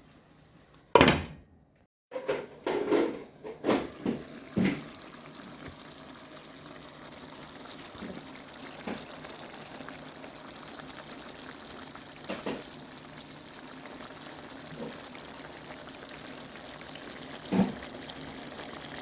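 A loud knock about a second in and a short run of clattering knocks, then a steady watery hiss with a few scattered light knocks.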